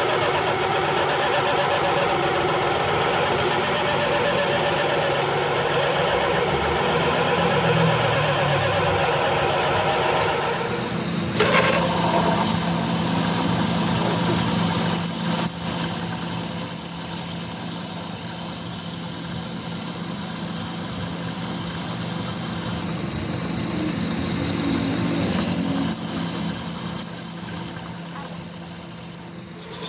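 Workshop power tools running: first a motor-driven tool with a wavering drone, then, after an abrupt change about eleven seconds in, a machine with a steady low hum and a high whine, broken by irregular sharp knocks.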